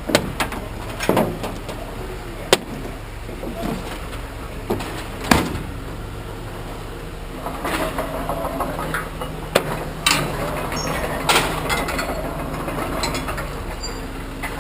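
Scrap metal being handled and tossed, with several separate sharp clanks and knocks over a steady low hum. From about halfway through, a busier stretch of scraping and rattling.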